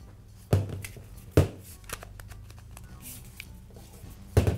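Sharp knocks and clicks of a plastic-housed Makita angle grinder being handled on a metal-topped bench: one about half a second in, another about a second later, and a loud one near the end. A faint steady low hum runs underneath.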